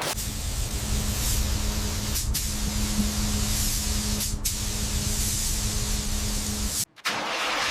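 Steady spraying hiss over a low, steady hum, broken by a sudden cut to silence near the end.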